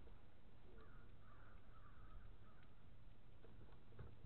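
A bird calling faintly for about two seconds, starting about a second in, over a low steady rumble.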